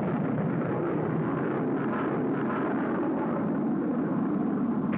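Rocket sled's rocket motors firing: a loud, steady rush of noise with no break.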